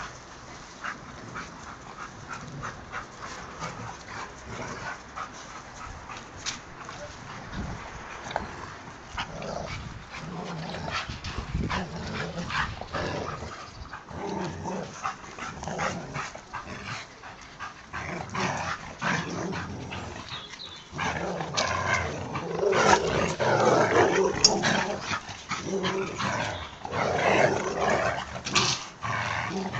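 A Labrador and a boxer-Labrador cross playing tug of war over a rope toy, with growling, snuffling and scuffling, getting louder and busier about two-thirds of the way through.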